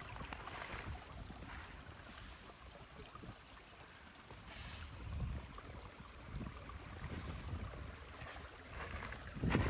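A stream running, a steady rush of water, with wind buffeting the microphone in low gusts now and then, strongest near the end.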